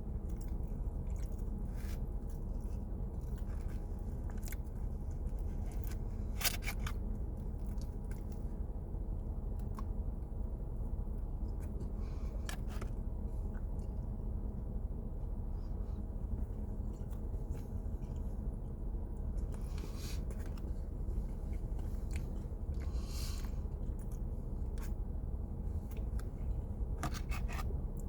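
A person chewing and biting into a pumpkin cinnamon roll close to the microphone, with scattered short mouth clicks over a steady low hum.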